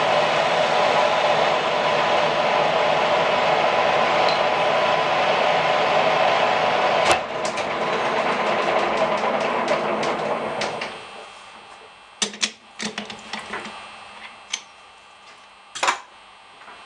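An electric power tool's motor running steadily, with a sharp click about seven seconds in, then switched off and winding down around ten to eleven seconds in. After it, several sharp clicks and knocks of metal parts being handled.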